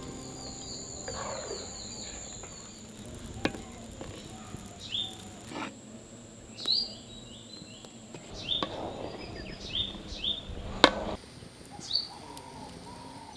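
Small birds chirping in short, falling calls every second or so over a steady high insect drone. A few sharp knocks cut in, the loudest about eleven seconds in.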